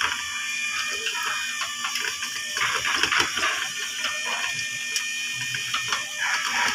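Chain-and-sprocket drive of a rotisserie spit turning over charcoal, clicking and rattling irregularly, over a steady hiss.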